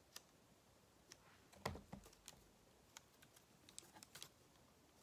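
Near silence broken by faint scattered clicks and taps of hands gripping and turning a plastic bottle, with one louder bump a little under two seconds in.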